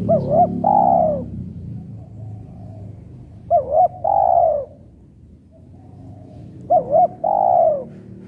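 Spotted dove cooing: its phrase comes three times, about three seconds apart, each a pair of short notes followed by a longer falling note. A low rumble from traffic fades away in the first two seconds.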